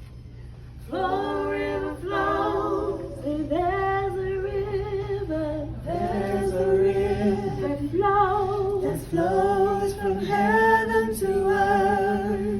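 A woman singing unaccompanied, her notes held and wavering. A second, lower voice joins in about six seconds in. A steady low hum runs underneath.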